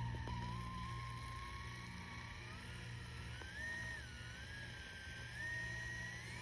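Red Cat Scout 2 1/18-scale RC crawler's stock brushless motor whining at a slow crawl. The pitch rises about halfway through, dips, then rises again as the throttle is eased on.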